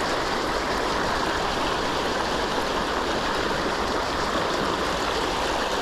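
Rushing river water, flowing steadily.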